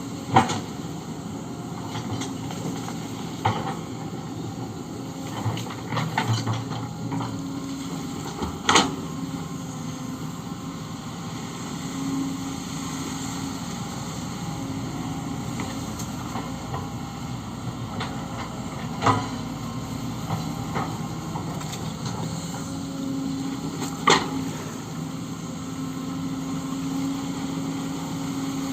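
Kobelco SK130 hydraulic excavator's diesel engine running steadily, its note strengthening now and then under load, with sharp knocks and clanks every few seconds from the machine at work.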